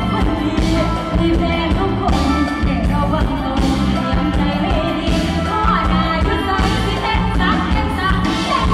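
Live Thai Isan-style band music with a singer singing into a microphone over a steady bass and beat.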